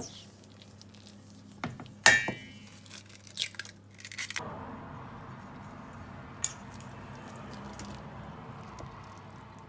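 Eggs knocked against a stainless-steel mixing bowl: one sharp, ringing clink about two seconds in, then a few lighter knocks. After that comes steady soft scraping as a silicone spatula stirs the eggs into thick cake batter.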